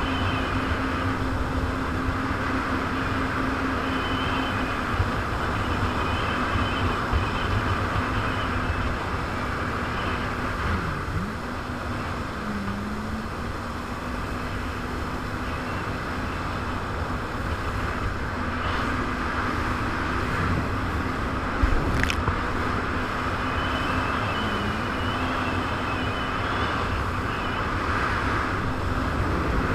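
Jet ski engine running steadily at speed, its pitch dipping briefly a few times as the throttle eases, over heavy wind buffeting and rushing water. One sharp knock about two-thirds of the way through.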